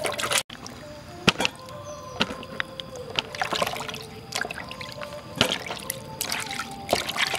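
A brief splash of hands rubbing potatoes in a basin of water, then scattered sharp knocks as wet potatoes are set down in a plastic colander, over background music with steady held notes.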